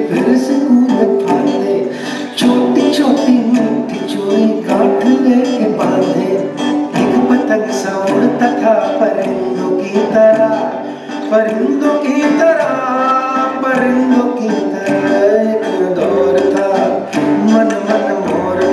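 Soundtrack music of a video advertisement: a South Asian–style song with a singing voice over plucked strings, played over a hall's sound system.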